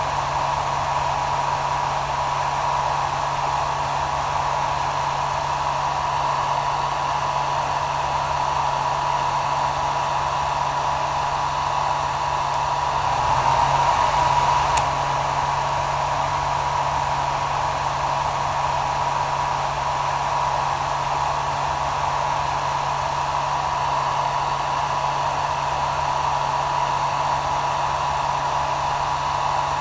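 Hair dryer running steadily: an even rush of air with a steady whining tone and a low motor hum. It swells briefly louder, with a faint click, about halfway through.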